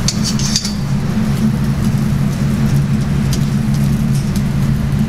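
Steady low mechanical drone of kitchen equipment at the grill, with a few faint high ticks in the first second.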